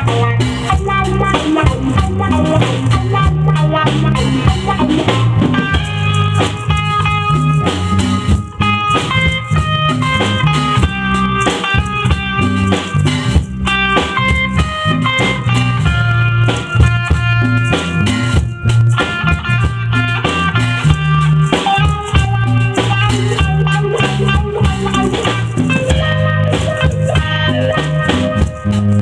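Live band playing an instrumental: electric bass holding a steady low line, an electric guitar playing the melody, with congas and a drum kit keeping the rhythm.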